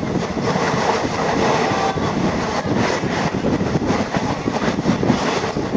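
Passenger train coach running along the track, heard from inside by the window: a steady rumble of wheels on rails with irregular rattling and clacking.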